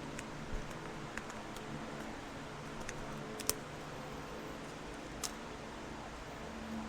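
A pick being worked into a small plastic parts bag from a carburetor rebuild kit: a handful of small sharp clicks and taps, the sharpest about three and a half seconds in and another near five seconds, over a steady low hum.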